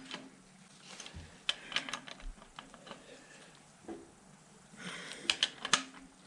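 Torque wrench ratchet clicking in two short runs, about a second and a half in and again near the end, as a main bearing cap bolt is tightened.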